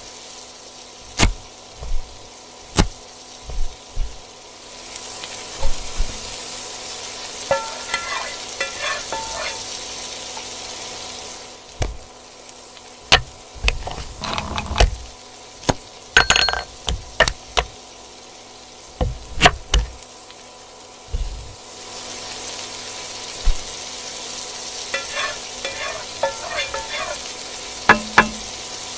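Frying sizzle in a pan, heard in two long stretches of crackling hiss. Between and across them come sharp knocks and taps of kitchen utensils, the loudest sounds.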